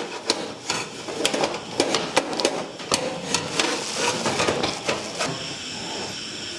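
A 3.5-inch hard drive being fitted into a desktop computer case's metal drive bay: a run of sharp clicks, knocks and rattles of metal on metal that thins out after about five seconds.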